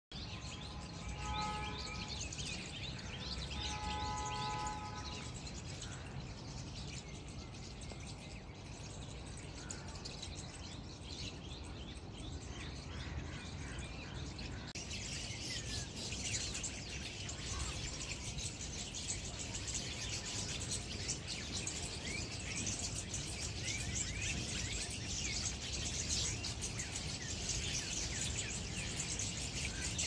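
Many birds chirping in the trees over a steady low background rumble, the chirping getting busier and louder about halfway through. Near the start a steady pitched tone sounds twice, briefly.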